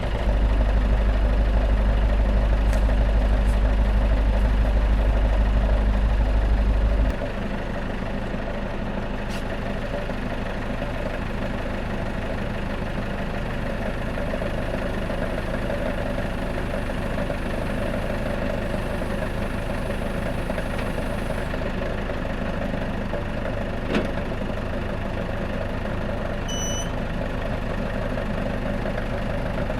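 Tractor engine idling steadily, with a heavier low rumble for about the first seven seconds that then drops to a lighter, even idle. One sharp click sounds a few seconds before the end.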